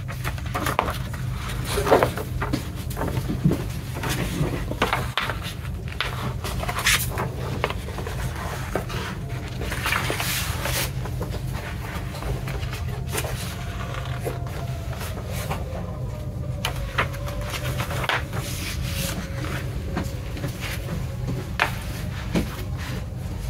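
Paper rustling and soft handling noises as a glossy lyric booklet and printed insert are leafed through and laid flat, with irregular crinkles and taps over a steady low hum.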